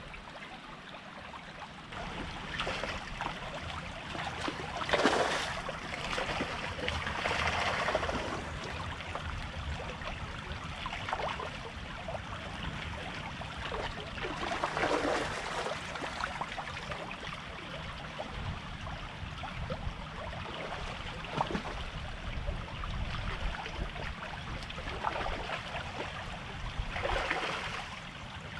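Shallow creek water running and rippling over a gravel bed: a steady babble with several brief, louder splashy surges.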